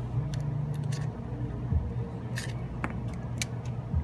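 Spudger prying the plastic rear housing off a Samsung Galaxy S4: a series of sharp plastic clicks and light scrapes as the clips let go, about eight in four seconds. A steady low hum runs underneath.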